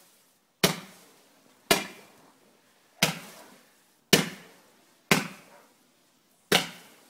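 Fireworks going off in a display: six sharp bangs about a second apart, each trailing off in an echo.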